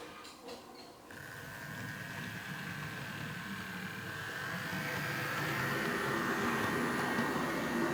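Electric motor of a model class 740 diesel locomotive starting up about a second in and running along the track with a steady whine that rises slightly in pitch as it speeds up, over a low rolling rumble.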